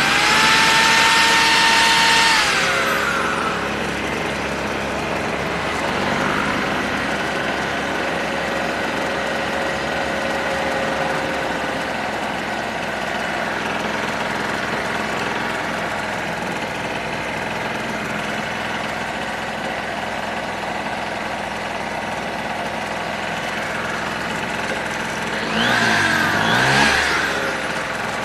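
United Power GG950DC portable generator's small two-stroke engine running steadily. At the start a plugged-in electric drill spins up with a rising whine, runs briefly and winds down, loading the engine to test that it picks up. About 26 seconds in the engine speed dips and comes back up.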